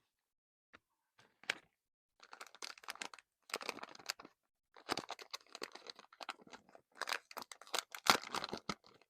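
Packaging crinkling and tearing as a blind-pack wrapper of masking tape is opened by hand: irregular rustling bursts with sharp crackles, loudest about eight seconds in.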